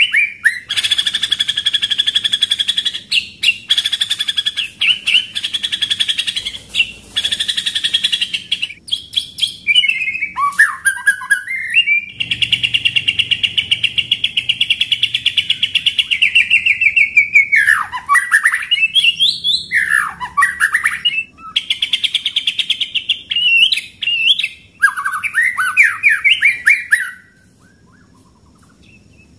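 Caged white-rumped shama (murai batu) singing loudly. Its song is long rolls of rapid-fire repeated notes (the 'tembakan ngeroll' style) broken by swooping whistles. It falls silent about two seconds before the end.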